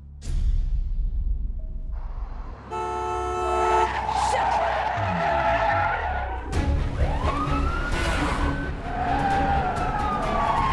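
Film car-chase sound: cars running hard with tyres squealing, over a steady low rumble, with a sharp hit just after the start and a brief chord-like tone about three seconds in.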